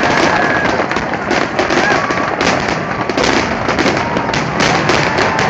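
Fireworks display: a dense, continuous run of crackling and popping shells, many small cracks a second with no pause.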